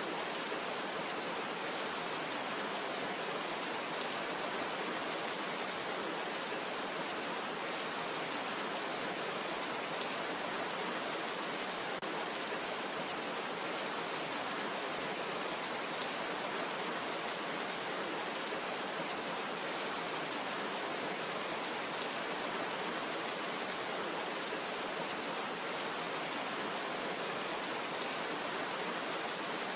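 Steady rain falling, an even hiss of many drops with no breaks or separate events.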